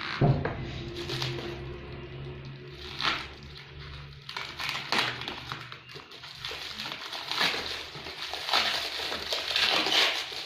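A knock, then a low steady hum that stops about four seconds in, followed by irregular rustling, scraping and knocking as the fan room heater and its packaging are handled.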